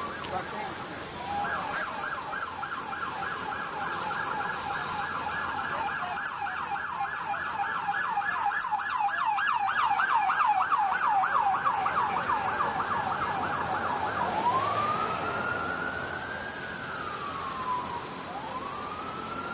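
Emergency vehicle siren in a fast warbling yelp that switches about 14 seconds in to a slow wail, rising and falling over a few seconds at a time, over steady street noise.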